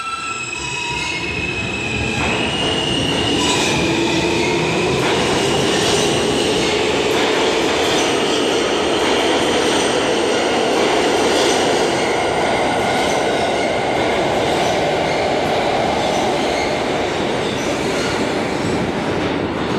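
New York City subway E train pulling out of the station and accelerating past. Its traction motors whine, rising in pitch, first in steps and then in a smooth glide, over a loud, steady rumble of wheels on rail.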